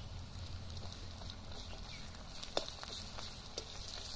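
Sliced onions frying in oil in an aluminium kadai over an open wood fire: a soft sizzle with scattered crackles, the sharpest tick about two and a half seconds in, over a low rumble.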